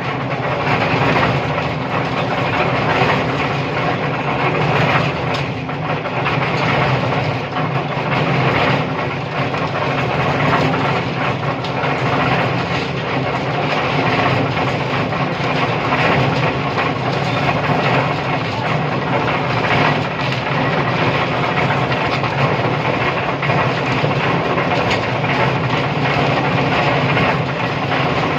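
An engine-driven machine running steadily throughout, with irregular clatter over its drone.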